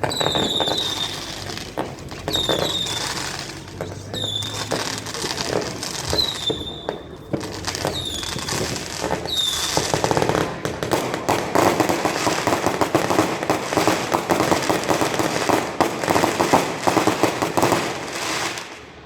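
Fireworks going off: short whistling squeals, each with a bang, come every second or two. After about ten seconds they give way to a dense, rapid crackling barrage, which stops suddenly near the end.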